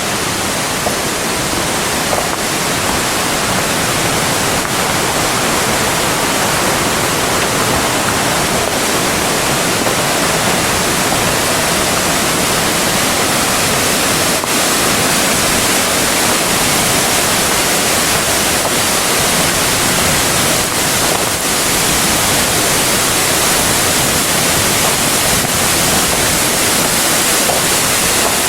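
Loud, steady rush of a waterfall's falling water.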